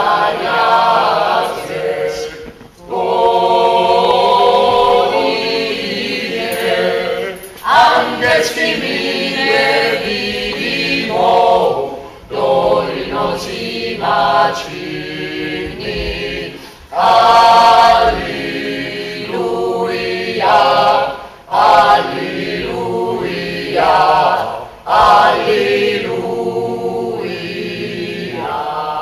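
Stage cast of men and women singing together as a choir, in sung phrases broken by short pauses.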